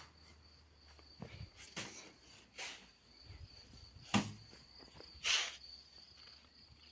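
Faint steady high insect trill, like a cricket, with a few short scrapes and one sharper knock.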